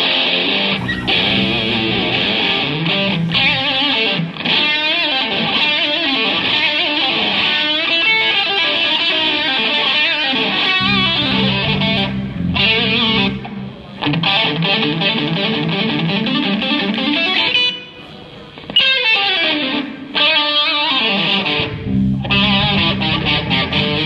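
Distorted electric guitar playing fast riffs and runs through an amp and effects during a sound check, with a few short breaks and a downward slide of pitch about three-quarters of the way through.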